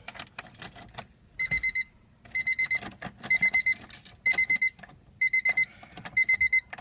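Keys rattling briefly, then, from about a second and a half in, a 1998 Honda Civic's electronic warning beeper sounding quick groups of about four high beeps, roughly one group a second, with the battery just reconnected.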